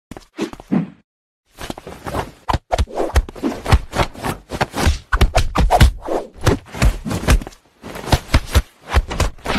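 A quick, irregular run of soft thumps and scuffles as a hand pats and tussles with a cat. It starts after a brief silence about a second in.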